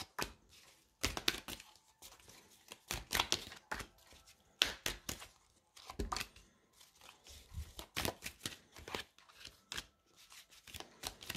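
Tarot cards being shuffled and dealt onto a table by hand: a string of irregular light snaps and slaps of card on card and card on tabletop, a few each second.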